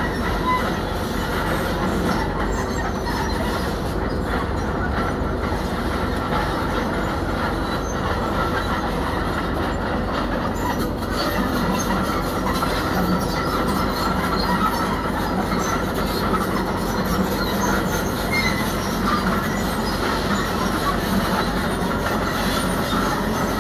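Tracked earthmoving machine at work: its diesel engine runs steadily under the clatter of steel tracks and rock.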